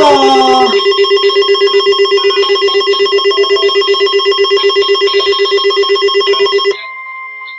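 Weather alert radio alarm going off: a loud electronic beep pulsing about ten times a second. It cuts off abruptly near the end, leaving a quieter steady high alert tone sounding on.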